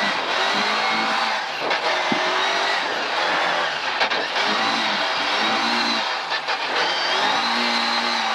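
Volvo 740 rally car's engine under hard load, heard from inside the stripped cabin, its pitch rising and falling with throttle lifts and a shift down from third to second gear. Under it runs a steady rush of tyre and gravel noise, and the sound dips briefly a few times as the throttle comes off.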